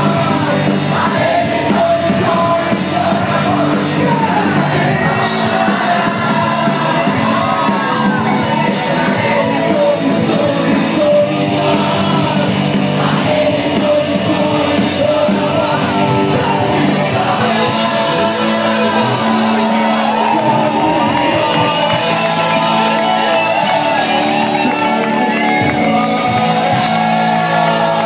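Live rock band playing loudly, with electric guitars and a sung vocal line, and shouts from the crowd, heard in a large hall.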